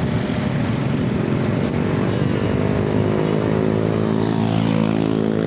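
Engine of a passing road vehicle running steadily and close by, with a steady low drone and a brief dip in pitch near the end.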